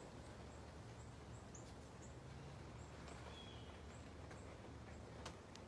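Faint outdoor ambience: a steady low rumble with faint, short, high chirps every half second or so, one brief whistled note about halfway through and a few soft clicks near the end.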